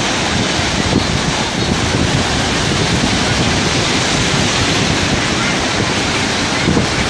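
Rough sea surf in stormy weather breaking and washing in over the shallows, a loud, steady rush, with wind on the microphone.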